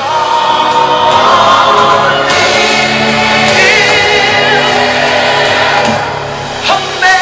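Choir singing slow, held chords, with a lead voice wavering in vibrato in the middle.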